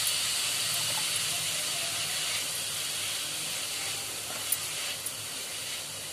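Chopped onions sizzling in a pan, a steady hiss that eases a little in the second half, with a few light clicks of a spoon stirring them near the end.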